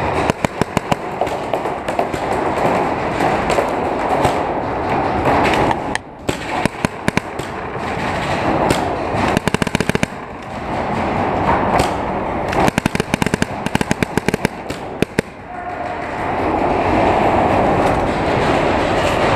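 Paintball markers firing in rapid strings of sharp pops, several separate bursts, with the longest run a little past the middle. A constant background noise runs underneath and grows louder near the end.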